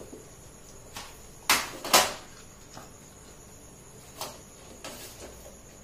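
A few short rustles and snaps of a stretchy elastic-edged plastic food cover being pulled over a small woven basket container, the two loudest close together about a second and a half in.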